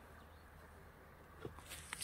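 Quiet forest-edge ambience with a faint steady low hum. Near the end come a few soft clicks and rustles of footsteps in grass as the camera is carried forward.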